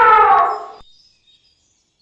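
Elephant trumpeting: the tail of a long, loud trumpet call, falling slightly in pitch and stopping under a second in.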